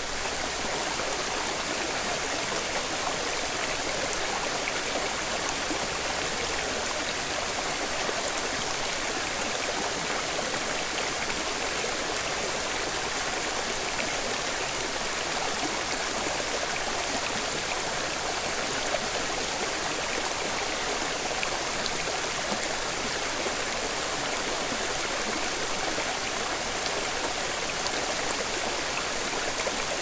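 Steady rush of splashing water from a mountain stream and waterfall: an even, bright hiss with no pauses.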